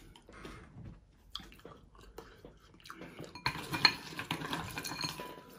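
Crockery clinking and knocking on a table: a few faint clicks at first, then from about three and a half seconds in a busier run of sharp clinks with brief ringing.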